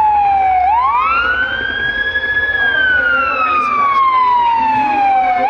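Siren wailing in a slow cycle: the pitch falls slowly, jumps back up about a second in, holds briefly, then falls slowly again, rising once more near the end.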